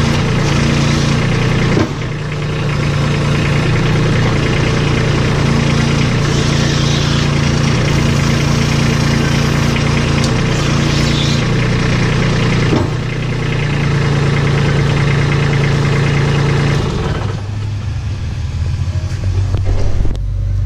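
Kubota compact tractor's diesel engine running steadily near idle, its note dipping and changing briefly twice.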